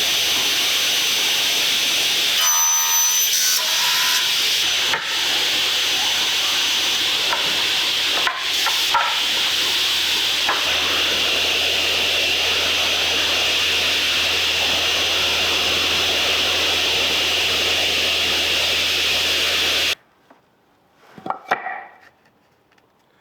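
Steady hiss of a power tool working wood, cutting off abruptly about 20 seconds in, followed by one short scrape.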